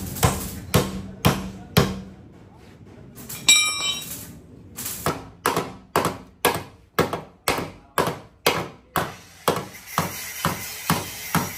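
Hammer blows on sheet metal, panel beating out accident damage at a steady two or so blows a second. The blows pause for about a second and a half, then one strike rings out metallically before the steady hammering resumes.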